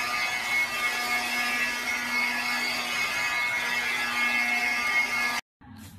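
Steady electric buzz of a motorised floor mop running as it is pushed over tile, cutting off abruptly near the end.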